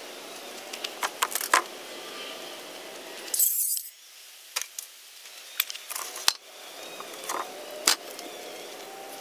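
Wooden boards and slabs knocking and clattering against the steel track of a portable bandsaw mill as they are handled and laid on the bed, a handful of sharp knocks over steady background noise. A short hiss comes about three and a half seconds in.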